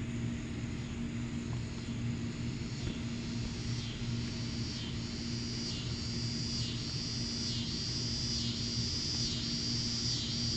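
A steady low hum like distant engine noise, with a high, pulsing insect call joining a few seconds in, about one pulse a second and growing louder.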